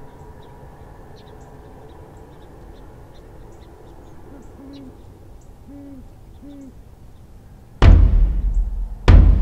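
Great horned owl hooting: three or four low, deep hoots about halfway through, over faint high chirps of small birds. Near the end a loud drum-heavy music track cuts in with a heavy hit.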